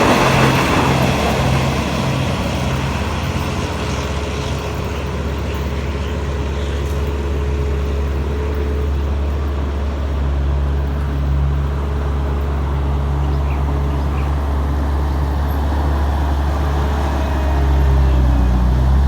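Diesel train engine running steadily with a deep drone, swelling a little about halfway through and again near the end.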